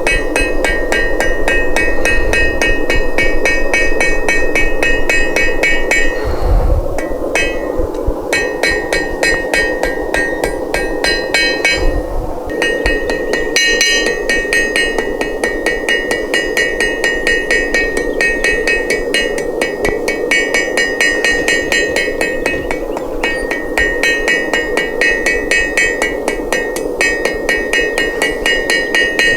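Blacksmith's hammer striking hot steel on an anvil in rapid, even blows, each with a bright metallic ring, with a couple of brief pauses. This is the forging of a small leaf from square bar stock.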